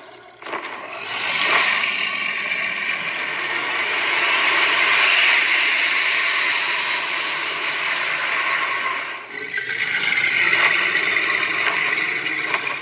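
Animatronic dragon Halloween prop playing its rough, noisy roaring sound effects, with a loud hiss about midway as it blows fog from its mouth.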